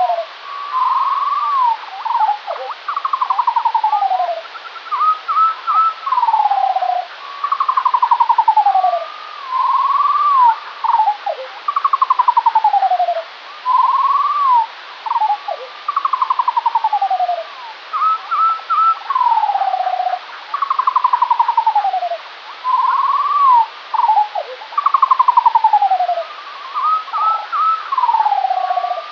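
Skylark song played back at quarter speed, so it sounds two octaves lower: a string of falling, fluttering glides about every two seconds, mixed with short slurred notes, over a steady hiss.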